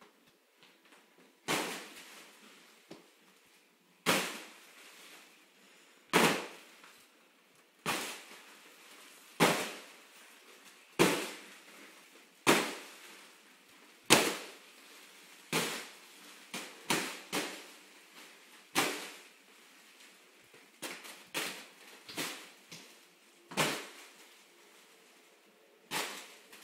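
A large foil (Mylar) balloon slapped repeatedly by a toddler's hands: about seventeen sharp crackling smacks of the foil, roughly one every second and a half, bunching closer together in the second half.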